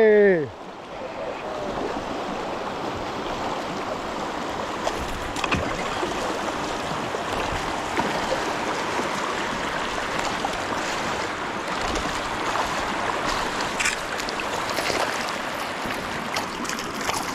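Steady rushing of river water through the rapids below a dam, with a few brief splashes as a hooked dorado thrashes at the surface and is drawn onto the rock.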